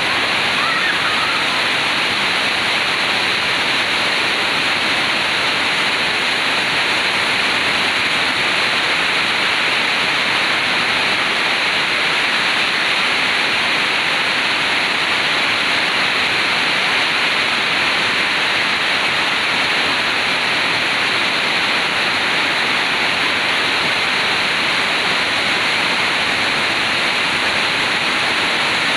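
Heavy rain pouring down in a steady, dense hiss, with water running off roofs.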